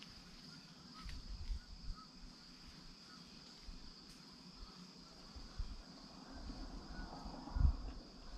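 Steady high-pitched trilling of insects, with small repeated chirps about twice a second. A few low thumps come near the end, the loudest shortly before it stops.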